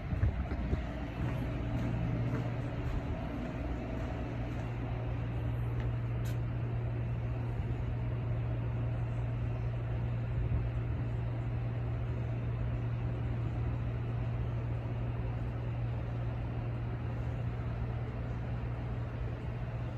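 Steady low mechanical hum under an even rushing noise, typical of a cruise ship's engines and ventilation heard on deck at sea, unchanging throughout.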